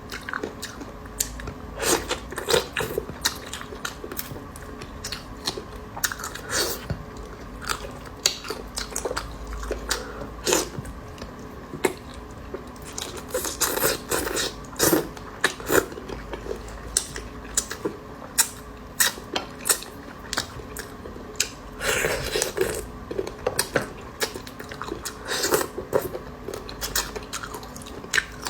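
A person chewing and biting beef balls close to the microphone: irregular sharp mouth clicks and smacks, several a second at times.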